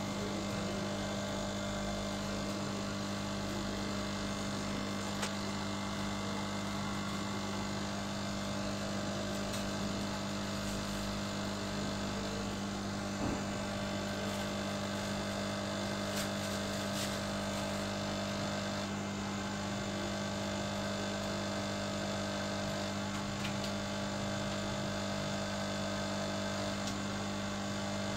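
Steady electrical hum with a strong low tone and several higher steady tones, from bench equipment running during a micro-soldering job. A few faint small clicks sound through it.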